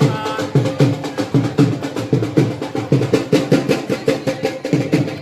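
Drums playing a fast, steady rhythm, several strokes a second.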